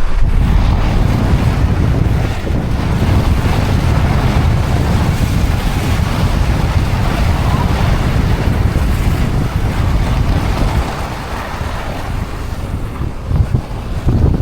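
Wind buffeting the microphone as a loud, steady rumble while travelling, easing slightly near the end.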